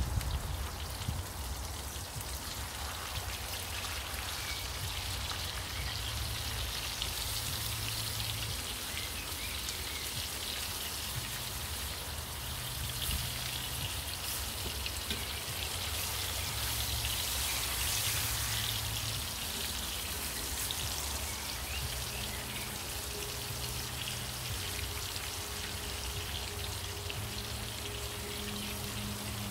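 Dense, steady crackling and sizzling hiss, over a low pulsing bass that shifts every second or so.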